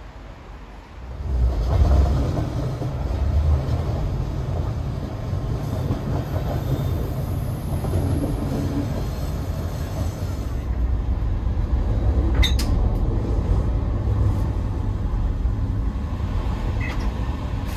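Railway carriage running on the track, heard from inside a couchette car: a steady low rumble of wheels and bogies that comes in abruptly about a second in, with a few sharp clicks later on.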